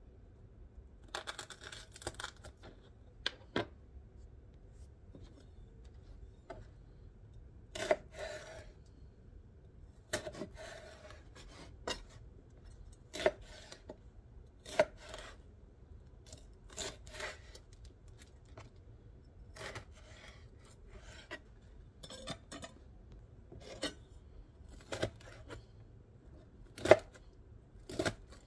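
A chef's knife slicing and dicing jalapeño and serrano peppers on a plastic cutting board, with irregular sharp taps of the blade on the board. Near the start a spoon scrapes the seeds out of the pepper halves.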